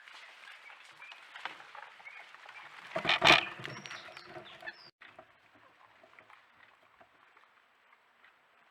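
A short, loud animal call about three seconds in, over faint clicks and rustling; the sound cuts off abruptly just before five seconds, leaving a quieter background.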